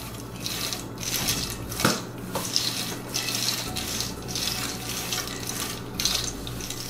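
Red silicone spatula stirring peanuts and sesame seeds in a dry cast-iron skillet while they toast, the seeds rustling and scraping across the pan in repeated sweeps. A light knock comes about two seconds in.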